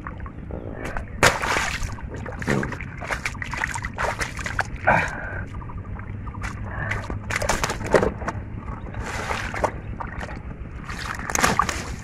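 Shallow muddy water splashing and sloshing in irregular bursts as a large catfish is grabbed and lifted by hand.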